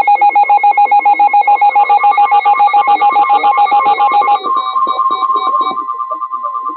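Electronic emergency alert tone: a loud warble pulsing about ten times a second, which switches about four and a half seconds in to a higher, steadier pulsing tone.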